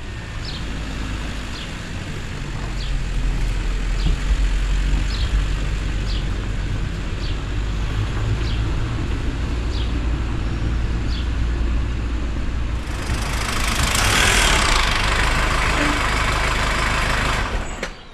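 Car engine running with a steady low rumble as the car comes up the street, faint ticks about once a second over it. A louder hiss builds from about thirteen seconds in, and the sound cuts off sharply just before the end.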